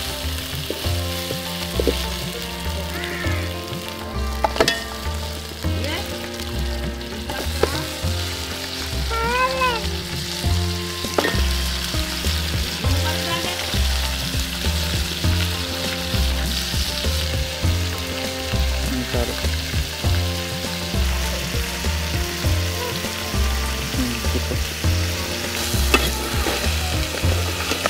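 Onions, green chillies and crab pieces sizzling as they fry in oil in an aluminium pot, with a continuous hiss and the scrape and click of a spatula stirring them.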